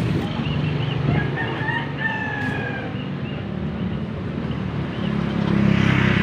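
A bird gives one long, slightly falling call about one to three seconds in, with a few short chirps around it, over the steady low hum of street traffic that swells near the end as a vehicle comes closer.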